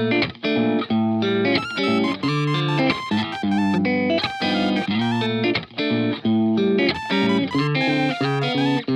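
Background music: an electric guitar playing a melody of quick plucked notes.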